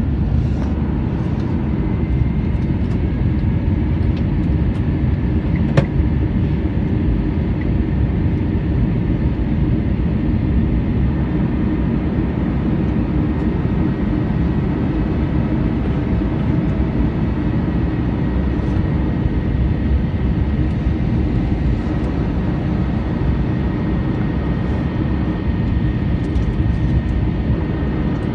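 Steady low rumble of an Airbus airliner's jet engines and airflow, with a faint high whine and a single click about six seconds in.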